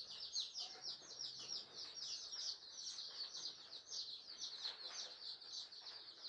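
A brood of young chicks peeping on and on, many short falling cheeps overlapping several times a second, faint.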